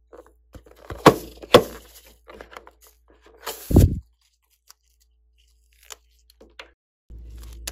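A rubber balloon being handled and snipped open with small scissors: two sharp crackling snips about a second in, a longer, louder cut a little before the halfway point, then a few light clicks.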